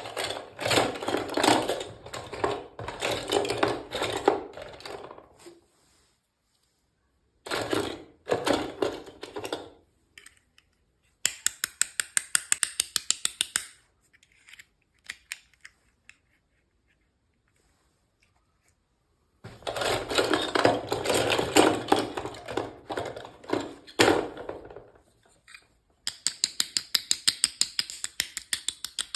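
Packaging being handled: stretches of plastic crinkling and rustling, with two runs of quick, even clicks, one in the middle and one near the end.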